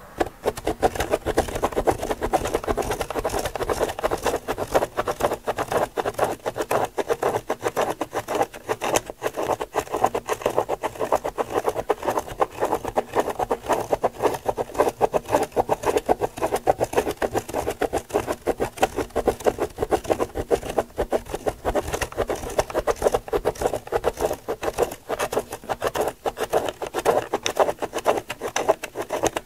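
Plastic Spirograph gear wheel driven around a toothed ring by a pen, its teeth clicking rapidly and unevenly against the ring while the pen tip scratches across the paper. It starts abruptly.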